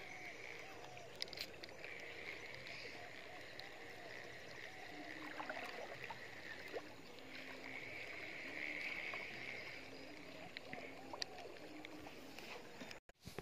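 Faint river ambience: water lapping, with a steady high hiss and many small repeated chirps underneath. It drops out abruptly for a moment near the end.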